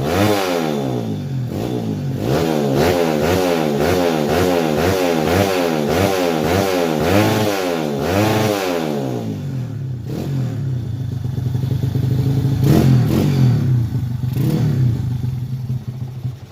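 Underbone (bebek) motorcycle engine in standard daily-use spec, revved in quick repeated throttle blips. From about nine seconds in it is held at steadier higher revs, and it drops off at the very end.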